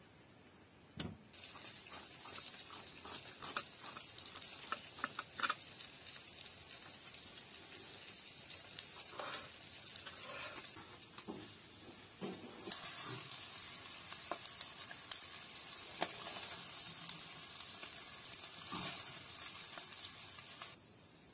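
Food sizzling in a frying pan, a steady hiss, with scattered sharp knife clicks on a wooden cutting board in the first half. The hiss grows louder about two-thirds of the way through and cuts off abruptly just before the end.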